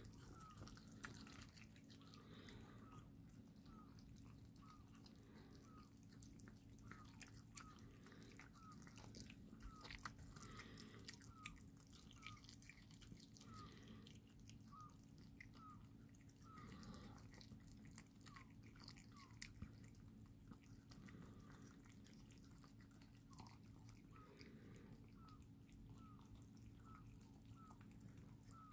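Faint, wet chewing, licking and smacking of kittens eating raw liver, with many small clicks, over a low steady hum.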